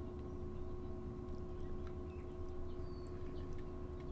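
Steady electrical background hum with low rumble, and a few faint, short high chirps and ticks scattered through it.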